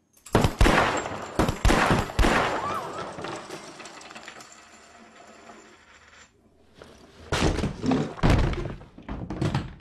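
Several revolver shots and heavy thuds in quick succession, ringing on in a large room, then a second cluster of shots and thuds near the end.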